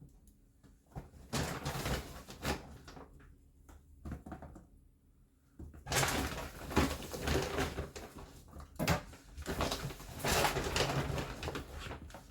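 Handling noises of groceries and bags being moved: scattered knocks and rustling, growing busier from about six seconds in.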